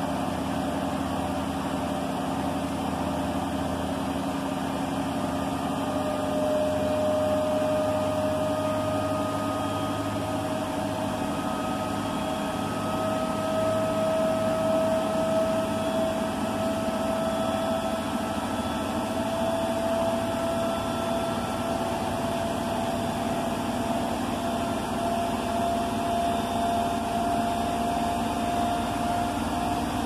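Indesit washer-dryer running in its wash programme: a steady low hum and rumble with a motor whine that rises slowly in pitch.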